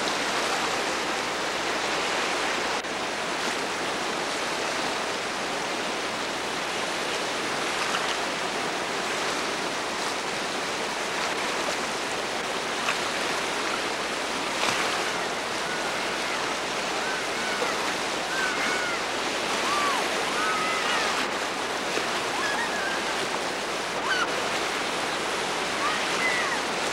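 Steady roar of a whitewater river rapid, water crashing over rocks and standing waves. In the second half, short faint voices call out over it now and then.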